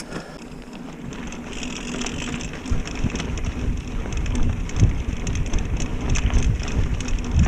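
Mountain bike rolling along a dirt trail: crackling tyre noise and the rattle of the bike, with wind rumble on the helmet-mounted camera's microphone growing louder from about three seconds in.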